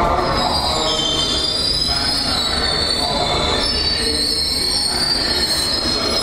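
London Underground S Stock train moving slowly through the platform, its wheels squealing in several high tones that waver and shift over a steady low rumble.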